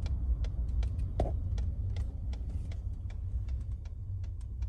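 Truck moving slowly, heard from inside the cab: a steady low engine and road rumble with irregular light ticks, about four a second, over it.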